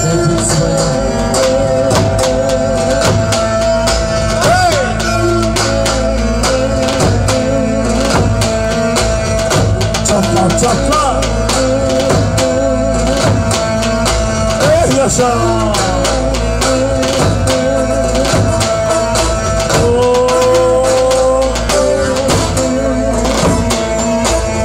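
Turkish Romani dance music: an ornamented, wavering melody over a held note, driven by dense drum beats.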